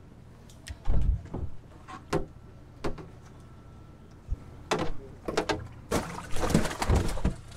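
Plastic deck cooler handled, with its lid knocking and clicking as it is opened. Near the end comes a burst of splashing as a tautog is dropped into the water inside and thrashes.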